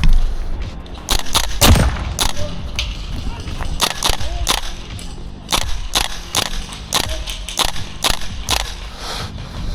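Airsoft gas-blowback guns firing: about twenty sharp cracks at irregular spacing, single shots mixed with quick pairs.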